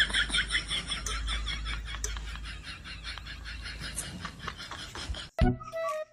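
A fast, even chirping, about seven pulses a second. About five seconds in it cuts off and a flute tune begins.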